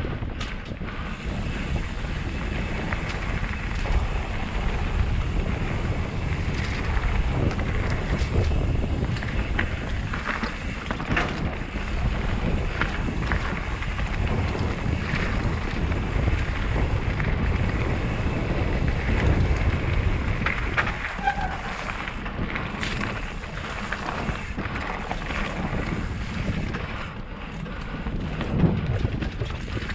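Wind rushing over a helmet-mounted GoPro while a Santa Cruz Chameleon hardtail mountain bike rolls down a dirt trail, its tyres rumbling, with scattered clicks and knocks from the bike over rough ground.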